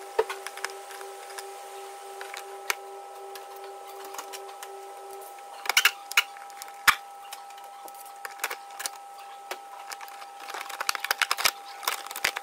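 Scattered plastic clicks, snaps and crackles as the wheel arch liner's push-in rivet clips are prised out and the liner is bent back, with a few louder knocks around six to seven seconds in and a quick run of crackling clicks near the end. A faint steady tone runs underneath.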